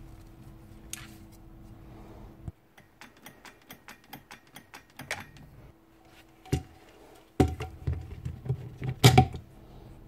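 Hand disassembly of an old Ryobi router: small clicks and taps of the metal parts, then a burst of louder knocks and rattles near the end as the armature is worked free of its aluminium housing.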